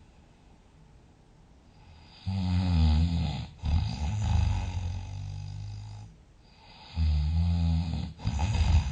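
Loud, rattling snoring. After about two seconds of quiet, a snore sounds about two seconds in and runs into a lower drone that fades. Another snore follows about five seconds later, and a third begins near the end.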